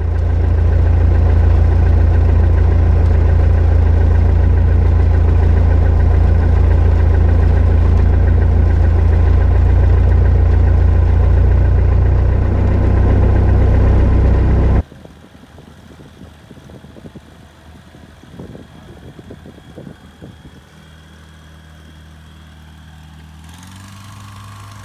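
Engine and travel noise heard from inside a vehicle crossing lake ice: a loud, steady low rumble. It cuts off about 15 seconds in, leaving a much quieter engine hum with scattered knocks, which steps up slightly near the end.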